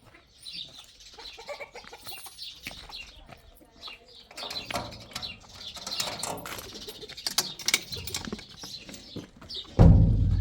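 Birds chirping, with scattered clicks and clatter. Just before the end comes a sudden loud, deep boom that fades away slowly.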